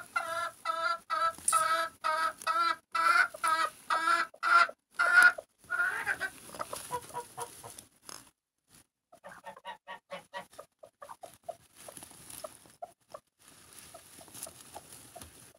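Broody hens clucking as they jostle over a shared clutch of eggs. A run of loud, evenly spaced clucks, about two or three a second, lasts for the first six seconds. After a short lull, softer and quicker clucking continues.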